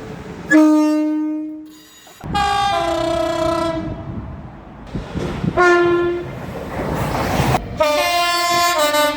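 Train horn blasts, several in turn. About half a second in comes a single note that fades away, then later blasts step from a high note down to a low one. A short rushing noise comes just before the last blast.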